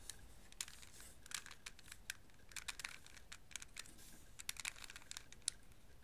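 Faint, irregular plastic clicks of a 3x3x3 Rubik's cube's layers being turned by hand, several a second, as a short algorithm is worked through to flip an edge piece.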